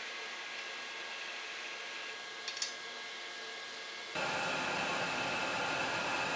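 A low steady hiss with one brief click about two and a half seconds in. About four seconds in, a louder, steady, fan-like whirr with a high hum starts abruptly: a laser cutter running as it cuts.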